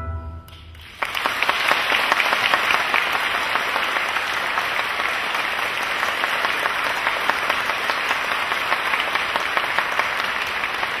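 The music's last low note dies away, and about a second in an audience starts applauding, dense and steady.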